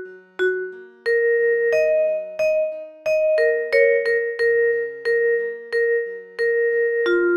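Instrumental ringtone melody in a bright, bell-like mallet tone: single notes struck about three times a second, each fading quickly, over soft low bass notes, after a short lull about half a second in.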